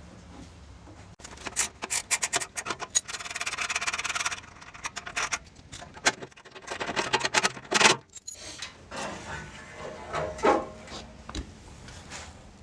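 Clicks, clatter and scraping of tools and metal parts as a wood chipper is being taken apart, with a rasping scrape about three seconds in.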